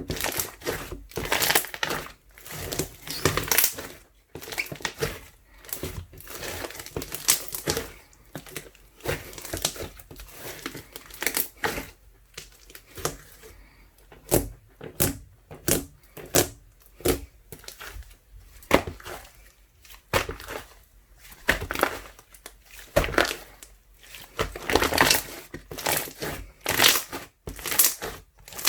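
Ice slime mixed with soothing gel being pressed and squished by hand, giving irregular runs of crackling, popping clicks.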